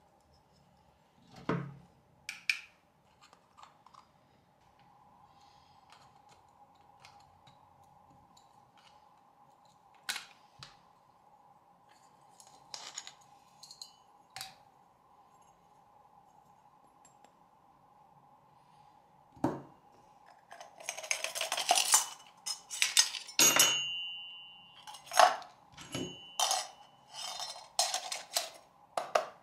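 Steel oil-filter base plate and needle-nose pliers clinking and scraping against each other: a few scattered clinks at first, then a dense run of metallic clinks and scrapes over the last ten seconds. A faint steady hum runs underneath.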